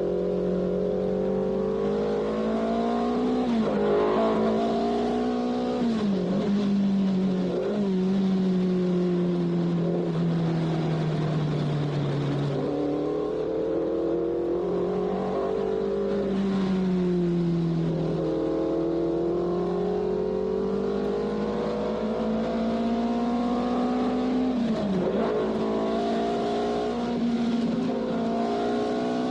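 Formula 1 race car engine running continuously at high revs, its pitch slowly climbing and sagging, with a few sudden drops in pitch, as at gear changes.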